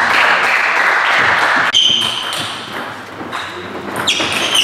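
Table-tennis doubles: a short burst of clapping after a point, then the ball clicking off bats and table in the next rally.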